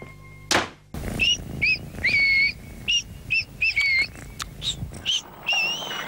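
A small caged bird chirping: a string of short whistled notes, some brief and some held and wavering, beginning about a second in. Just before it, a short whoosh.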